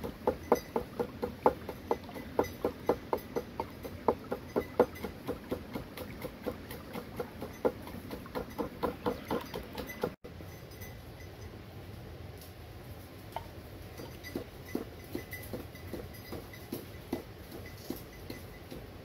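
Wooden pestle pounding in a mortar, a steady beat of about three knocks a second. About halfway through it cuts off abruptly, leaving quieter surroundings with fainter, irregular knocks.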